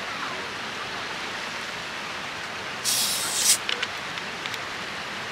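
Plastic soda bottle being picked up and handled, with a short burst of hiss about three seconds in and a few light clicks after it, over a steady background hiss.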